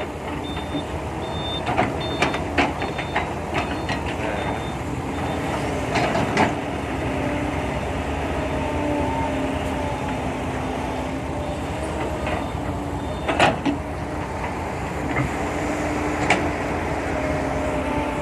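Kobelco SK120-5 excavator at work digging and loading soil: its diesel engine runs steadily, its pitch shifting with the hydraulic load, while the bucket and boom clank sharply several times, two loudest knocks well after halfway. A reversing alarm beeps in the first few seconds.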